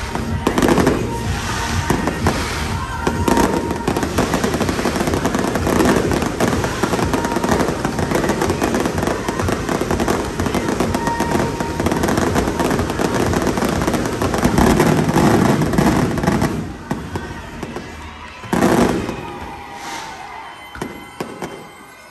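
Fireworks show: a dense barrage of exploding shells with booms and crackle, with a song playing over it. The barrage thins out about sixteen seconds in, and one more big boom follows a couple of seconds later.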